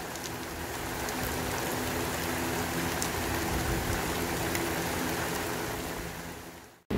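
Steady rain falling, an even hiss with a faint steady hum beneath it, fading out near the end.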